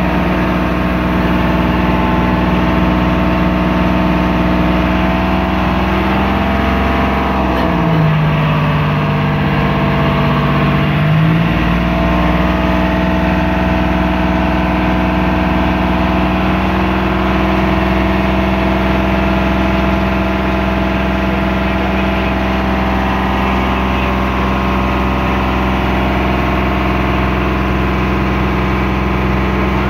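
A boat's engine running steadily under way, its pitch dropping briefly about eight seconds in as the revs come down, then climbing back to the same steady speed about three seconds later.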